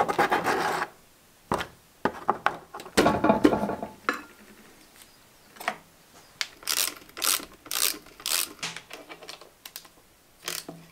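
Hand tools working on the metal front-axle swivel housing of a Land Rover Series 1: metal clinks, knocks and scraping, then a run of sharp clicks about three a second from a socket ratchet loosening the housing bolts.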